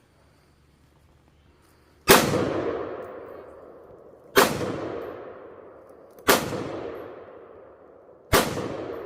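Four gunshots, roughly two seconds apart, each followed by a long fading echo.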